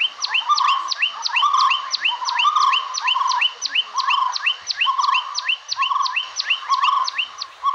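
Forest birds calling: a rapid series of short, high, falling notes about three a second over lower warbling notes that come every second or so.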